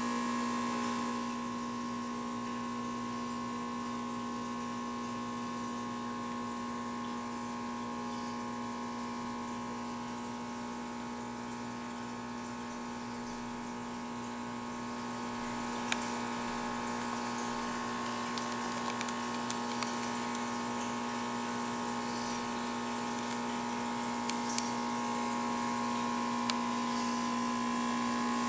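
Steady electric hum of an aquarium pump running, with a few small clicks about halfway through and again near the end.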